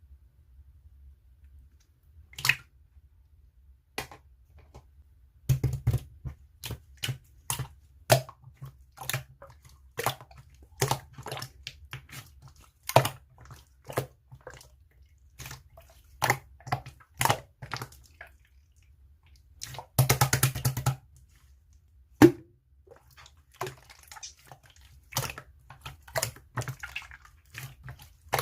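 Slime being pressed and played with by hand, giving an irregular run of short wet clicks and pops, with a denser burst of crackling about twenty seconds in.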